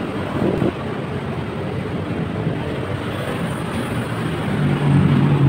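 Road traffic passing, motorbikes and cars, as a steady rushing noise, with one engine growing louder near the end.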